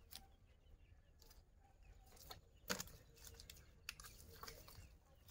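Near silence, broken by a few faint clicks and rustles of a fishing net and caught fish being picked apart by hand; the sharpest click comes a little under three seconds in.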